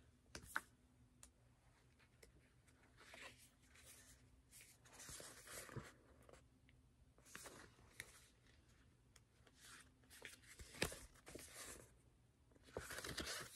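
Faint paper rustling and light clicks of a stiff, crisp new album photobook being opened and its pages handled and turned, in a few short bursts.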